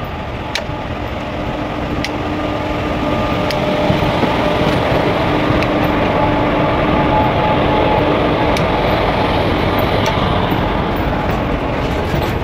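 Indian Railways WAG-5 electric locomotive passing close by at the head of a freight train: a steady rumble of wheels on rail with a hum from the locomotive. A few faint clicks come through, and the sound grows louder about three to four seconds in as the locomotive draws level.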